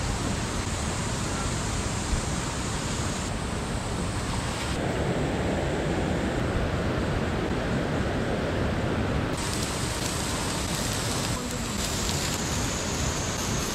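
Steady rush of a mountain valley stream, an even hiss that shifts in tone a few times.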